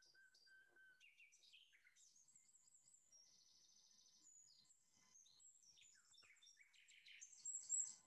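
Common nightingale song from a played-back field recording, faint. It runs through varied phrases: a few repeated whistled notes at the start, a fast rattling trill about three seconds in, and sharp high notes that are loudest near the end.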